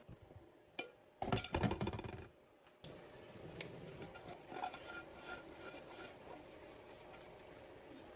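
Kitchenware being handled: a quick run of clattering clinks and knocks about a second in, then quieter handling noise with scattered light clinks.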